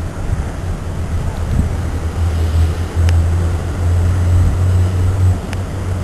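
A steady low rumble that swells for a couple of seconds in the middle, with two faint clicks, about three and five and a half seconds in.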